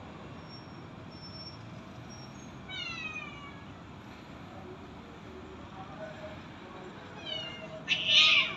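Black-and-white cat meowing in short falling calls: one about three seconds in, then two close together near the end, the last the loudest and raspy.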